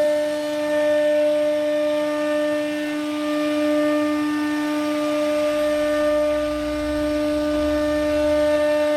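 CNC router spindle running at a steady high speed with a constant whine as its bit cuts along the edge of a wooden board. A low rumble joins in over the second half.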